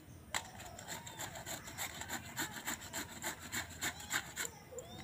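Peeled raw papaya being grated on a flat handheld metal grater: quick rasping strokes, about three or four a second, that stop about four and a half seconds in.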